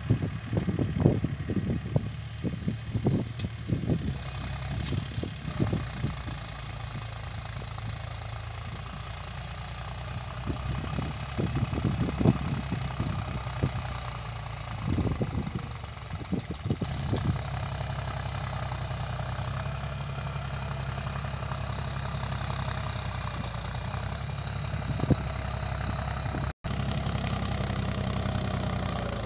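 Mahindra 275 DI tractor's three-cylinder diesel engine running steadily while the tractor pulls a cultivator through dry soil, heard from a distance, with irregular low thumps over it during the first half. Near the end, after a brief break, the engine is heard closer, idling steadily.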